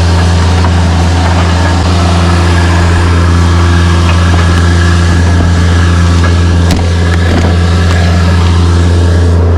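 Truck engine running at a steady idle, a loud, even hum.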